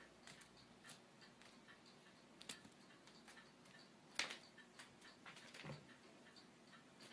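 Faint, even ticking of a clock, with a single sharper click about four seconds in.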